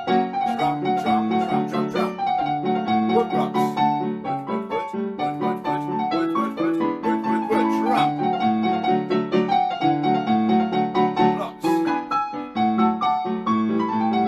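Piano-style keyboard music playing a lively tune of chords and melody notes, with a few sharp percussive clicks among them.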